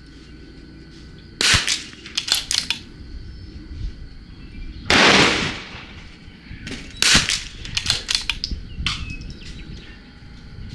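CZ .22 LR rimfire rifle firing SK Long Range match ammunition: two sharp shots, about a second and a half in and about seven seconds in, each followed by a run of light clicks as the bolt is worked. A longer, rushing burst of noise comes about five seconds in.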